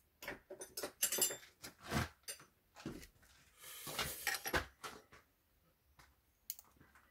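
Irregular metallic clicks, clinks and small knocks of hand tools and small parts being handled on a motorcycle engine, with a brief rustling or rubbing noise about four seconds in.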